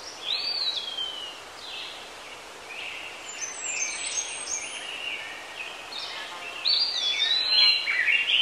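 Songbirds chirping and whistling over a steady outdoor hiss, with a falling whistle early and a busier run of chirps and trills near the end.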